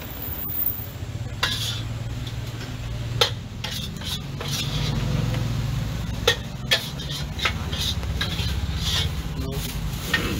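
Metal spatula scraping and stirring noodles in a wok, with a light sizzle and a few sharp clangs of the spatula against the pan.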